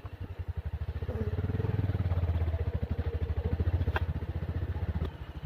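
Bajaj Pulsar 220F's single-cylinder engine running with evenly spaced firing pulses; it gets louder about a second in and drops back near the end.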